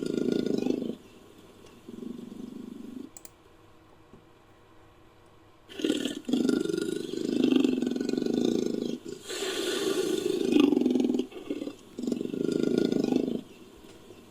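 Made-up creature sound effect layered from bear and monster roars. A series of roars: a short one at the start and another about two seconds in, then a pause. Longer, harsher roars follow from about six to eleven seconds in, and one more comes near the end.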